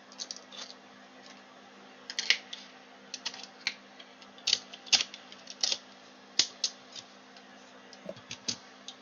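Irregular light clicks and taps of a small circuit board and hand tools being handled and set down on a workbench as the board is flipped over, over a steady low electrical hum.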